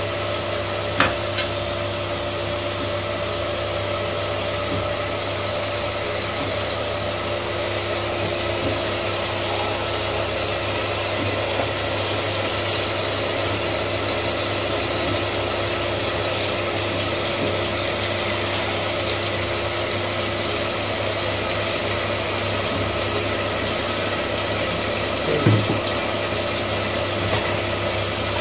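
Steady bubbling and hiss of a pot of khichdi liquid boiling on the stove, with a constant low hum underneath. There is a sharp click about a second in and a short knock near the end.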